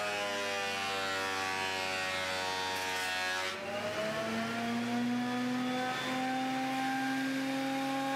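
Benchtop thickness planer milling a laminated holly-and-cherry board. The motor's pitch sags while the board feeds through under load, then about three and a half seconds in it climbs back up and runs steady as the board comes free.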